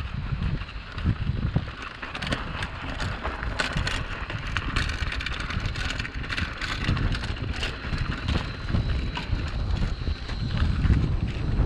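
Wind rushing over the microphone of a bicycle-mounted action camera while riding, with irregular rattling and clicking from the bicycle jolting over a rough road.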